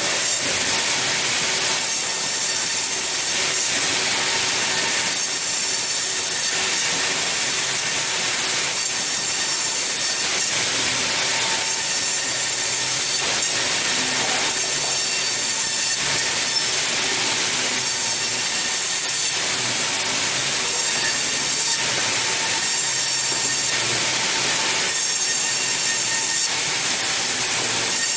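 Sawmill saw cutting through wood with a loud, steady, hissing scream that swells and eases every few seconds as the cuts go on.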